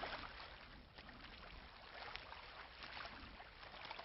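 Near silence: a faint steady hiss with a few soft crackles.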